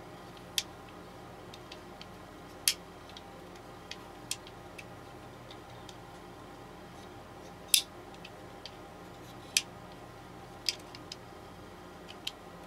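Knife blades of a freshly reassembled Leatherman Surge multitool being opened and snapped shut: about five sharp metallic clicks at uneven intervals, with softer ticks of the tools moving between them.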